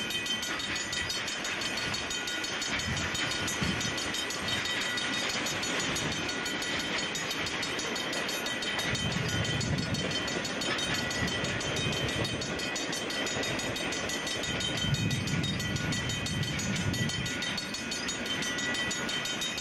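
Freight train cars (covered hoppers, boxcars and tank cars) rolling past close by: a steady noise of steel wheels running on the rails, with a low rumble that swells and fades every few seconds.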